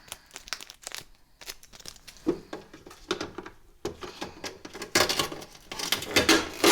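Packaging being crinkled and torn off a new refrigerator in a run of irregular crackles, louder near the end.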